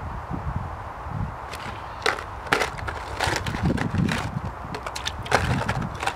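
Ice cubes tipped from a plastic tub into a plastic bucket of water, clattering against the tub and dropping in, a quick run of sharp clicks and knocks starting about a second and a half in.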